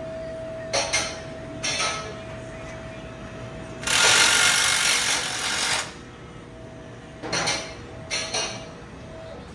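A power tool run in short bursts: two brief bursts, a longer one of about two seconds midway, then two more brief bursts. This fits an exhaust install in a shop. A faint steady hum runs underneath.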